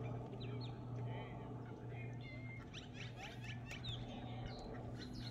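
Small birds chirping in many short, high calls, over a steady low hum.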